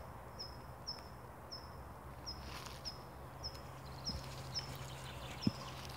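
Faint outdoor background with a high, short chirp repeating about twice a second, each chirp falling away quickly. A soft thump about five and a half seconds in.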